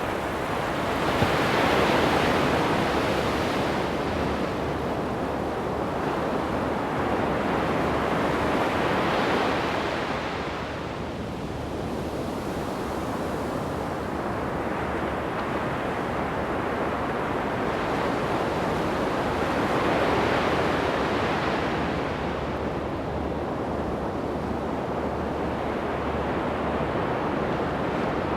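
Ocean surf breaking on a sandy beach: a steady rush of water that swells with each breaker and eases between them, with louder waves about two seconds in, around nine seconds and around twenty seconds.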